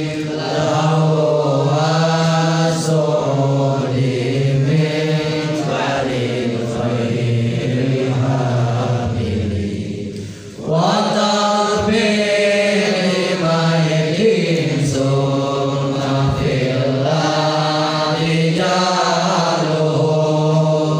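A voice chanting an Arabic didactic poem (syair) in the tawil meter, in long melodic held phrases, with a short pause for breath about ten seconds in.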